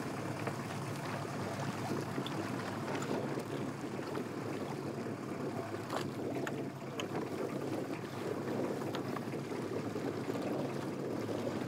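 Wind and choppy water around a small open fishing boat, with a steady low hum underneath and a few light clicks about halfway through.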